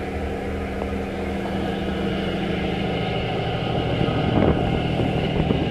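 A car ferry's engines droning steadily under way, with water rushing in the churned wake.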